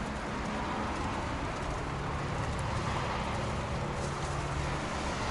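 Steady background rumble and hiss of outdoor traffic noise, with a faint low hum and no distinct events.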